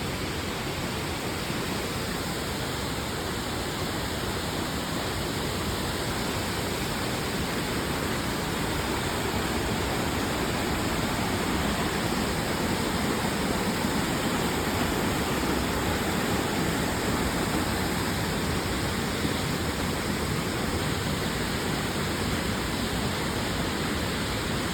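Waterfall rushing: a steady, even rush of falling water that grows slightly louder around the middle.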